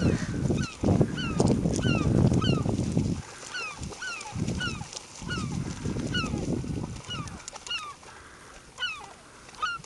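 Wild birds calling over and over, short calls that slide down in pitch, two or three a second. Bursts of low rumbling noise are louder, strongest in the first three seconds and again in the middle.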